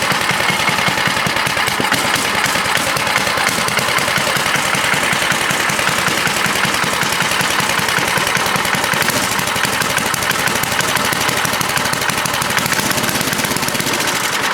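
John Deere snowblower's small gas engine running steadily in quick, even firing pulses. Its carburetor needs some adjustment, by the owner's account.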